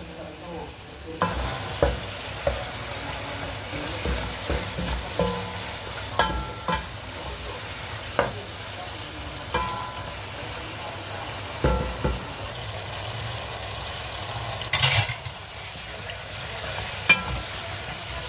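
Chicken pieces and ginger sizzling in hot oil in a pan, starting about a second in. A wooden spatula stirs them and knocks against the pan a dozen or so times, some knocks with a short ring.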